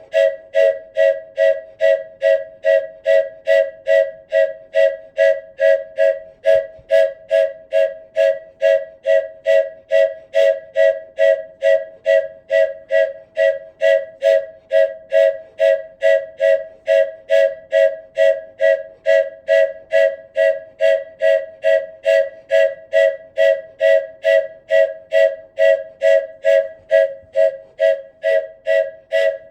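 Wooden train whistle sounding its two-note chord in short, evenly repeated toots, about two and a half a second, a steady unbroken rhythm.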